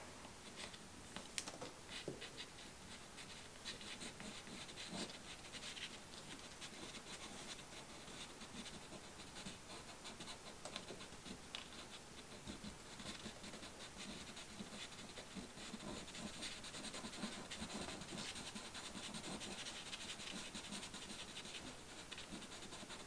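Faint dry scratching of a sharpened Faber-Castell hard pastel stick drawing short strokes on paper, with many light ticks of the point.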